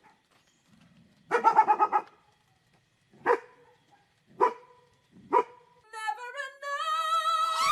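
A dog barking: a quick run of yaps about a second in, then three single barks about a second apart. Near the end a long, wavering pitched sound begins, like singing or music.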